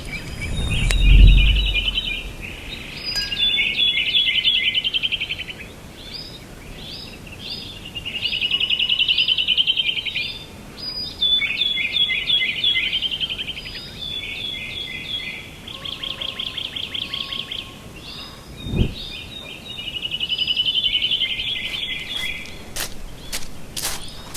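A songbird singing a series of fast trilled phrases, each a second or two long, with short pauses between them. There are low thuds about a second in and again about three-quarters of the way through.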